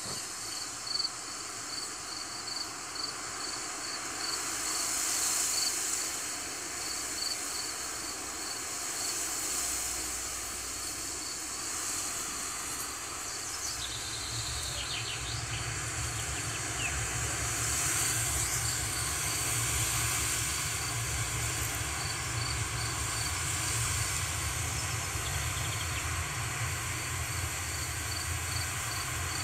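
Wind hissing through grass, with a faint high chirp repeating at an even pace. About halfway through, a low rumble joins in and stays.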